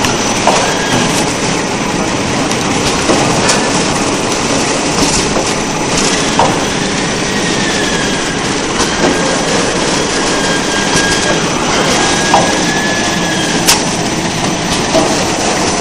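Automatic drinking-straw wrapping machine running: a steady mechanical clatter with irregular sharp clicks.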